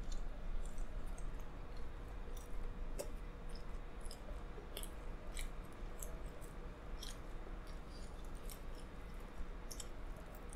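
A person chewing pizza with a bread-like crust, with irregular small wet clicks and crackles from the mouth and crust.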